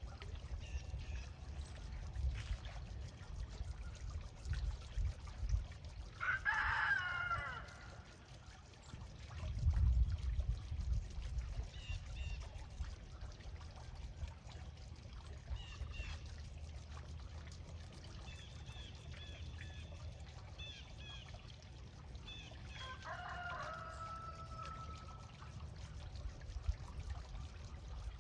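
A rooster crowing twice, once about six seconds in and again about two-thirds of the way through, the second crow ending on a long held note. Small birds chirp briefly in between, over a low rumbling background.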